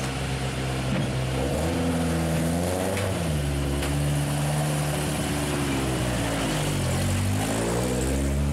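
Opel Manta rally car's four-cylinder engine revving as the car pulls away. The pitch climbs and falls sharply once, holds steady, dips, then climbs again near the end.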